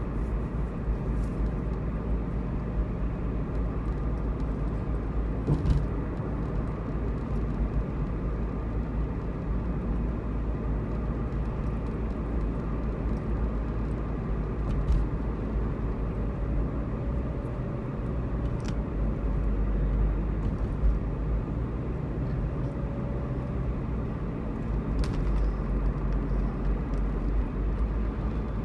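Steady road and engine noise inside a car's cabin while driving, mostly a low rumble, with a few scattered faint clicks.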